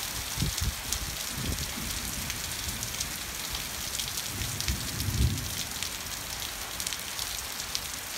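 Heavy rain pouring down on pavement and foliage: a steady hiss with many close drops ticking, and a few low thumps, the loudest about five seconds in.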